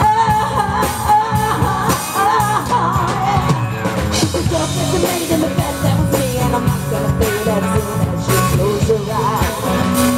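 Live rock band playing: electric guitar, electric bass and drum kit, with a voice singing over them.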